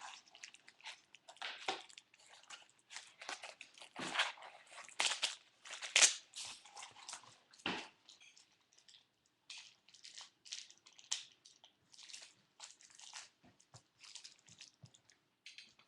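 Plastic packaging crinkling and crackling as it is handled and pulled open to get a Beyblade top out, in short irregular bursts with louder crackles about four and six seconds in.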